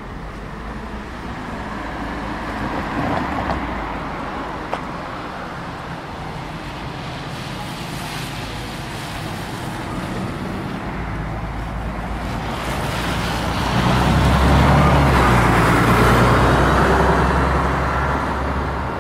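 City street traffic: vehicles passing with a steady hiss of tyres. The loudest moment comes about two-thirds of the way through, when a large vehicle with a deep engine passes close by and then fades.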